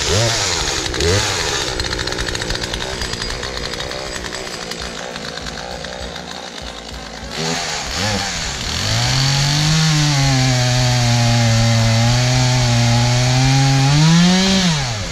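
Gas chainsaw cutting brush close to the ground: the engine blips up and down at first, then runs at high revs for several seconds with a steady tone, rises once more near the end and drops back as the throttle is let off.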